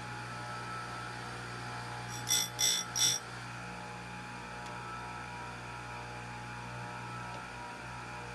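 Oregon electric saw-chain grinder's motor running with a steady hum. A little over two seconds in, the spinning wheel is brought down onto a chain tooth in three short, loud grinding touches.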